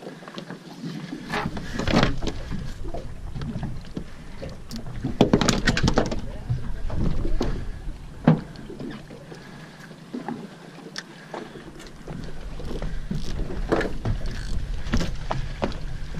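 Sounds aboard a small fishing boat at sea: a wash of water and wind with a deep rumble. Irregular louder splashes and rustles, and one sharp knock about eight seconds in.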